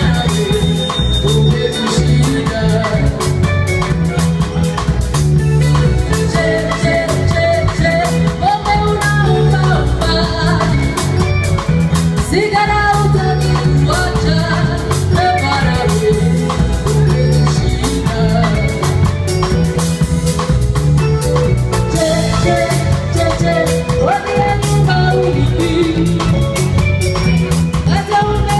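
Live band playing: a woman singing into a microphone over electric guitar and a drum kit, with a steady, heavy beat.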